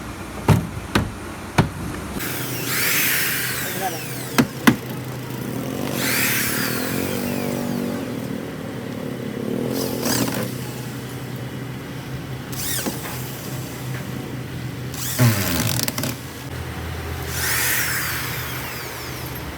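Factory workshop noise: a power tool whirs in short bursts every few seconds over a steady machine hum, with a few sharp clicks and knocks in the first few seconds.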